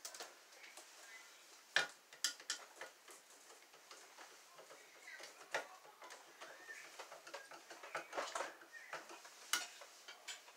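Small metallic clicks, taps and scrapes of a screwdriver and wires working in a metal electrical box, fastening a ground wire under a screw. The clicks are scattered and irregular, with sharper ones about two seconds in, near the middle and near the end.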